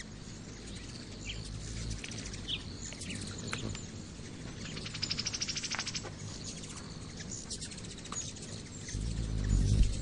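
Hummingbirds at a feeder: scattered short, high chirps and chips, with a rapid run of ticking chatter lasting about a second from about five seconds in.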